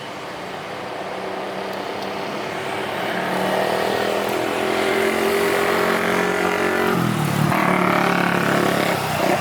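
Jet airliner's engines passing close by: a steady engine tone growing louder over the first few seconds, then dropping in pitch about seven seconds in as the aircraft goes past.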